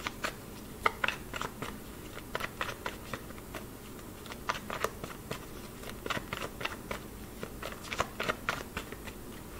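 A deck of tarot cards being shuffled by hand: irregular soft clicks and slaps of cards against each other, several a second.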